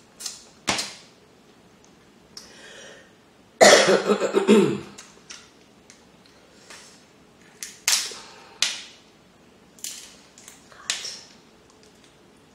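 Boiled shellfish shells cracking and snapping as they are pulled apart by hand: a string of sharp cracks, with a louder run of crunching about four seconds in.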